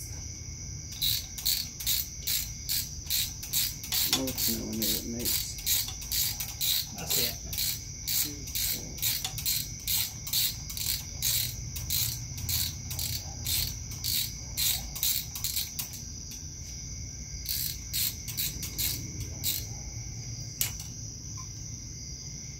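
Ratchet wrench clicking in short back-and-forth strokes, about two a second, as the bolts of a small outboard's plastic water pump housing are run down. The strokes stop about two thirds of the way through, pick up again briefly, and end with a single stroke near the end.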